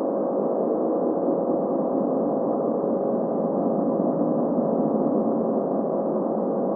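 Creature sound effect for the Crunciognatus: a steady, unbroken drone with one held tone over a rough, grainy texture, with nothing in its high end.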